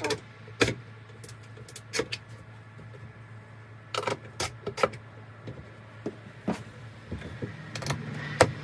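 Scattered knocks and clicks of a drawer and hand tools against a wooden cabinet while drawer runners are being fitted, over a steady low hum.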